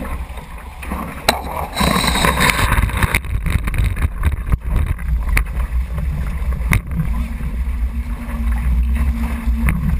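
Water rushing and splashing past the hull of a Weta trimaran under sail, with wind buffeting the microphone. A louder burst of spray comes about two seconds in, and a few sharp knocks are heard.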